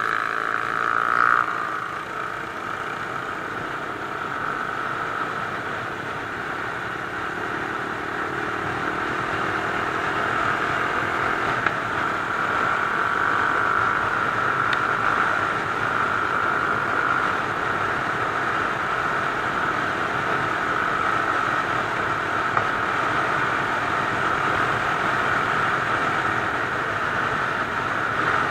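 Mash Cafe Racer 250's single-cylinder engine running at road speed, heard on board. About a second in the revs peak and drop as the bike is shifted from fourth into fifth gear, then the engine pulls steadily, growing slowly louder.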